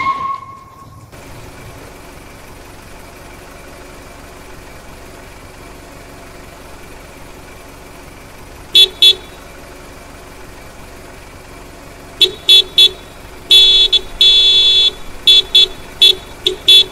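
Car horn honking: two quick toots, then after a pause a string of short toots broken by a couple of longer honks. It is a call for someone to come out of the house.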